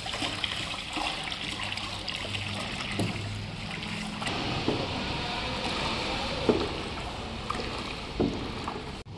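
Liquid pouring from a plastic bucket into a plastic drum of water while a wooden stick stirs and sloshes the mix, a steady splashing with a few short knocks; a batch of liquid detergent being mixed.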